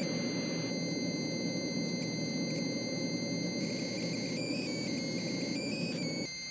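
Steady in-flight cockpit noise with a thin, high electronic whine over it. It drops to a fainter hiss shortly before the end.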